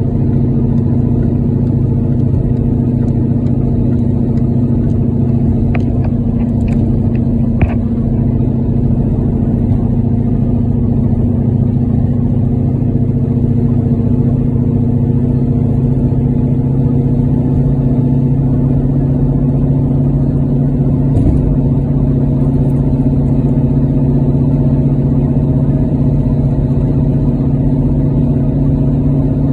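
Steady drone of a car's engine and road noise heard from inside the cabin while cruising on a wet highway, with a few light clicks about six to eight seconds in.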